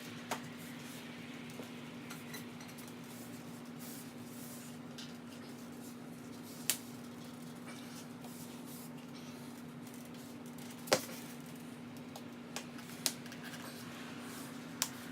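Quiet handling of a CushCore foam tyre insert and tyre being worked onto a mountain bike rim, with a few sharp clicks or knocks spread out, the loudest about eleven seconds in, over a steady low hum.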